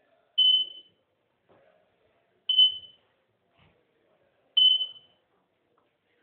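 Electronic beeper sounding a high-pitched tone three times, about two seconds apart, each beep short and fading away.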